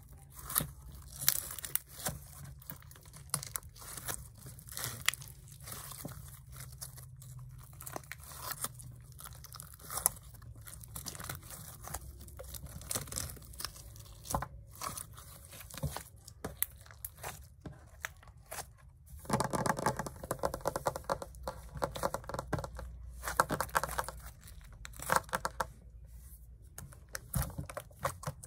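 Glossy yellow slime being squeezed, folded and stretched by hand: sticky crackles, clicks and small pops as it is worked. The crackling gets denser and louder for several seconds past the middle.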